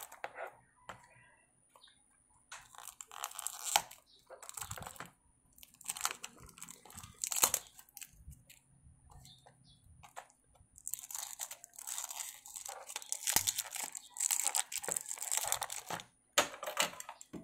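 Toy-car packaging handled by hand: cardboard box and clear plastic wrap crinkling and rustling in irregular bursts, with a longer spell of crinkling in the last third.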